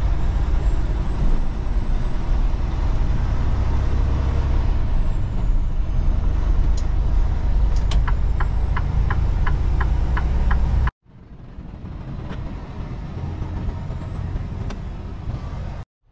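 Semi-truck's diesel engine running as the truck drives, a steady low rumble. About two-thirds of the way through there is a short run of even ticks, about three a second; the sound then cuts out abruptly and comes back quieter.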